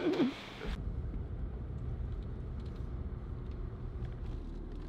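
Low, steady rumble of a Land Rover's engine and road noise heard from inside the cabin while driving, starting about a second in.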